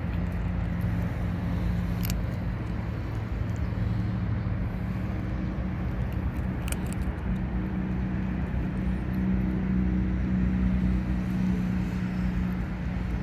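Steady low mechanical hum with a constant pitch, and two faint clicks, one about two seconds in and one near the middle.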